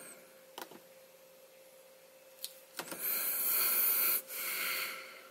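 Two short clicks, then a person's breath close to the microphone: a long hissy breath followed by a shorter, softer one.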